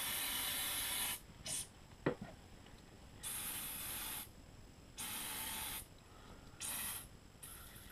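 Aerosol leak-detection spray hissing in several short bursts, about a second each, sprayed around the LPG hose connector on a gas-converted generator to check for gas leaks. A single sharp click about two seconds in.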